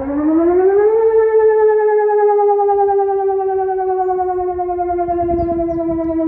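Civil-defence warning siren sounding: one loud wailing tone that rises in pitch over the first second, then holds and slowly sinks, like the air-raid warning sirens heard in Ukraine.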